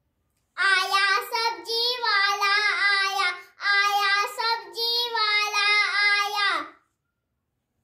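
A young boy singing solo, unaccompanied, in two phrases with a short break about halfway through.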